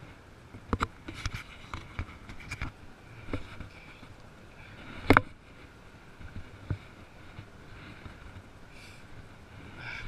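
Handling noise close to the camera: scattered sharp clicks and knocks, several in quick succession in the first three seconds and the loudest about five seconds in, over a faint steady outdoor background.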